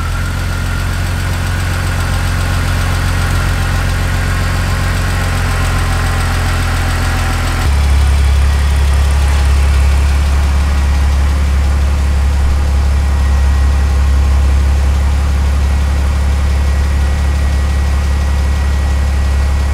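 BMW E46 engine idling steadily, with a little ticking noise that the owner puts down to the car not having run in a long time. The sound changes abruptly about eight seconds in, becoming louder and deeper.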